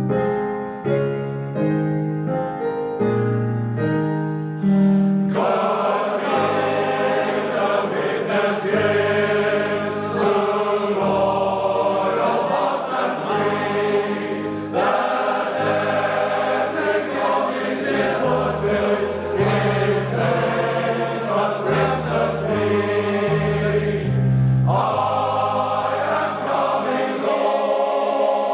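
Male voice choir singing in harmony. For about the first five seconds a piano plays the accompaniment alone, then the full choir comes in.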